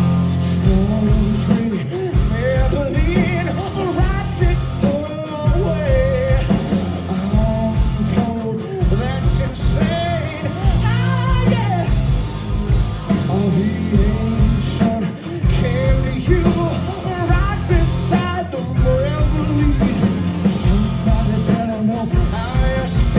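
A rock band playing live: a singer over electric guitar, bass guitar and drums, loud and continuous, heard from within the crowd.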